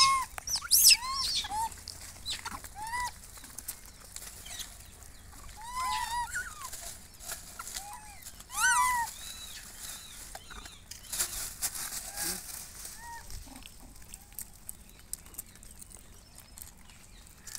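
Rhesus macaques giving short, arched, squeaky coo calls, one after another in clusters. The calls are loudest about six and nine seconds in and thin out later.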